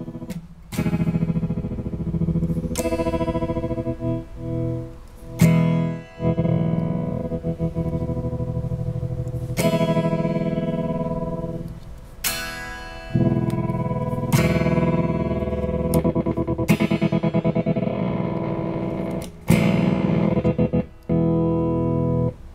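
Electric guitar chords played through Fairfield Circuitry effects pedals, distorted and effected: about ten chords struck in turn, each left to ring, some with a fast pulsing wobble.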